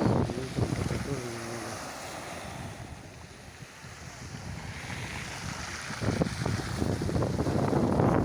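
Small sea waves washing onto a pebble beach, with wind buffeting the microphone. The wind rumble eases in the middle and comes back strong about six seconds in.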